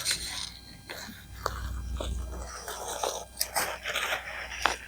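Crackling, rustling and a few sharp snaps of something being torn and broken apart by hand, done by hand in place of pruners.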